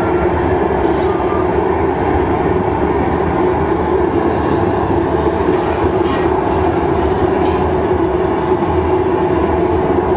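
Steady roar of a glassblowing studio's gas-fired furnace and burners, with a few faint taps.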